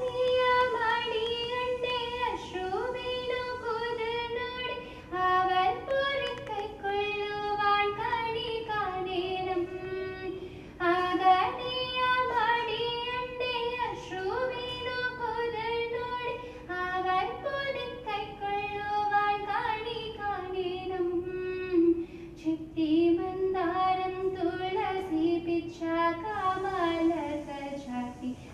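A woman's solo voice singing a devotional song to Guruvayurappan (Krishna), moving between long held notes with gliding pitch, over a faint steady drone note.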